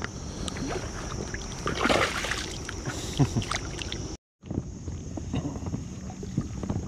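Water splashing about two seconds in, with small knocks and sloshing from an inflatable float boat on a pond. A steady high-pitched hiss runs underneath, with a brief dead gap just past the middle.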